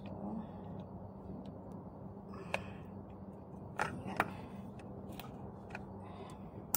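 A handful of sharp metallic clicks and taps as pliers grip and work the metal bracket and axle of a caster wheel, spaced irregularly over a steady low hum.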